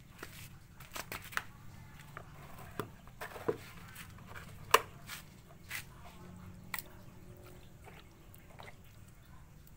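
Handling noises: scattered sharp clicks and knocks as rubber tubs and a small glass are moved about, the loudest knock a little under five seconds in.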